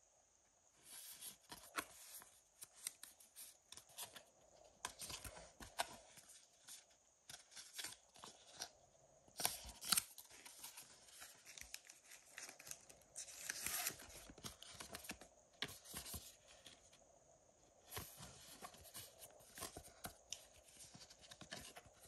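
Trading cards being handled and slid into plastic card sleeves: faint, irregular sliding and rustling with small taps and clicks, and a few louder swishes.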